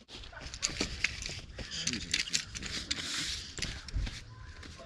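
Clothing rustling as dirt is brushed off it, with scattered clicks and scuffs of camping gear being handled.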